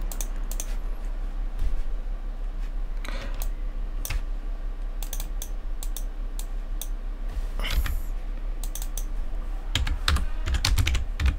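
A computer keyboard clicking irregularly as keys are pressed, over a steady low hum.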